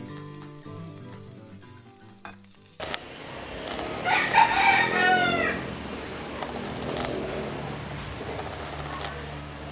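Intro music that stops suddenly about three seconds in, then a rooster crows once, loudly, about four seconds in, followed by a few short bird chirps over outdoor background noise.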